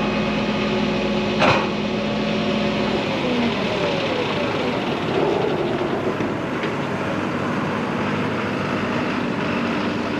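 Cat D6 XE diesel-electric bulldozer running during unloading, with a sharp metallic clank about a second and a half in; its engine note drops away about three seconds in and then runs steadily.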